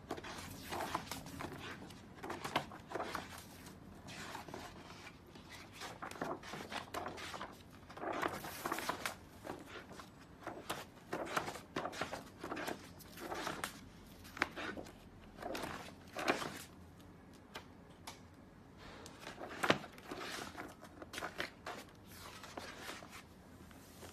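Pages of a large wallpaper sample book being turned one after another: irregular rustles and swishes of stiff paper sheets, with one sharper slap near the end.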